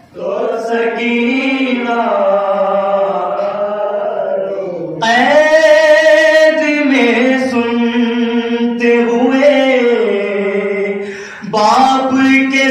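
Unaccompanied male voices chanting an Urdu soz-marsiya lament: a lead singer at the microphone with a small group of men joining him, in long held notes. It steps up in loudness about five seconds in and breaks briefly for breath near the end.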